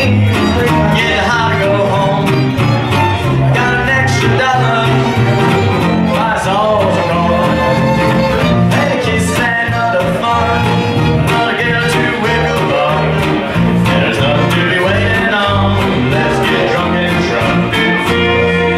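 Live country band playing an instrumental passage: fiddle over strummed guitars and bass with a steady beat, and a clarinet joining in.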